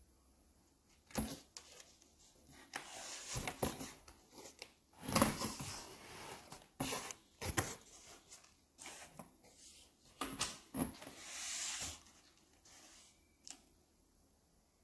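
Cardboard packaging handled by hand: scattered rustles, scrapes and soft knocks as a box's flaps are opened and the packing inside is moved.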